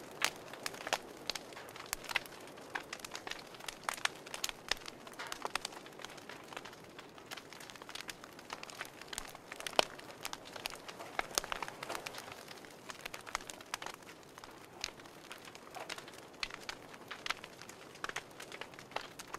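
Wood fire crackling in a wood stove: irregular snaps and pops, a few sharper than the rest, over a steady hiss.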